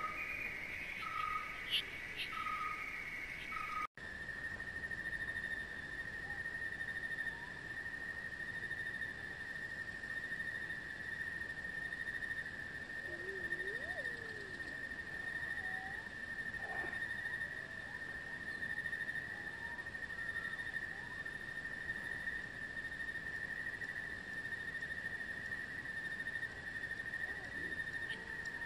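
Insects droning: one steady high-pitched trill that runs on without a break, with a few faint chirps in the middle. About four seconds in the sound cuts off for an instant, and a pulsing call gives way to the single steady drone.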